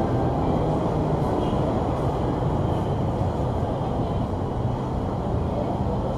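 Steady low rumble of city road traffic, heard from inside an enclosed bus rapid transit station.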